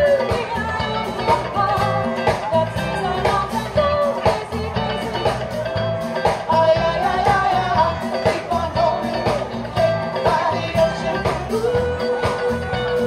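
Live band playing: a woman singing over drum kit, congas, bass guitar and keyboard, with steady drum hits keeping the beat.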